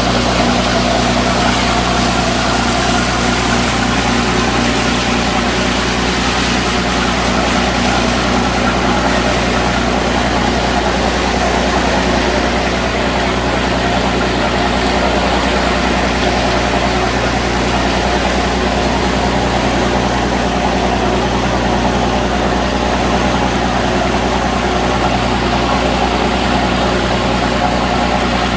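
A boat's engine running steadily as it moves through the harbour, a constant low hum with a rushing hiss of water over it.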